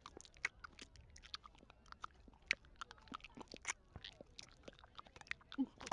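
Faint wet mouth clicks and tongue smacks, irregular and several a second, from a cartoon dog working a pill around on his tongue before swallowing it. A short throaty sound comes near the end.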